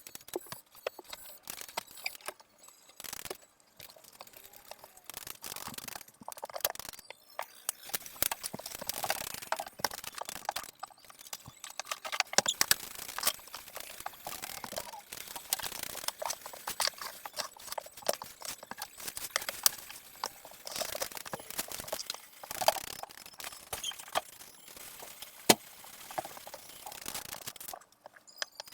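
Irregular clatter and rustling of things being handled and moved about, with many small knocks and clicks.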